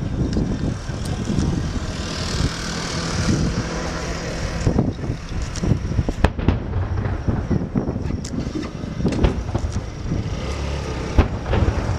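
Fireworks going off: irregular sharp bangs and pops, with a hissing crackle about two to three seconds in. A steady low rumble runs underneath.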